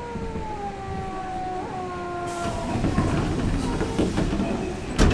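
Nagoya Municipal Subway 2000 series train with an IGBT VVVF inverter braking into a station. The inverter whine falls slowly in pitch as the train slows. A hiss and heavier rumble follow about two seconds in, and a single sharp knock comes near the end.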